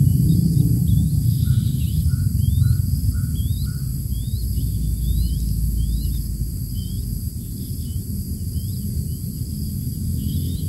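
Outdoor ambience: short, high rising chirps repeat about twice a second over a steady low rumble and a constant high insect buzz, with a short run of lower notes between about one and four seconds in.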